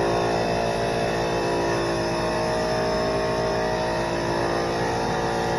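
A 21-gallon air compressor running steadily with a constant hum, under the hiss of a SprayIt R500 LVLP gravity-feed spray gun spraying paint.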